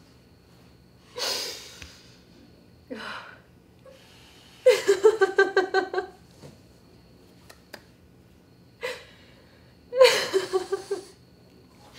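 A woman laughing: two runs of quick breathy pulses, one in the middle and one near the end, with short gasping breaths between them.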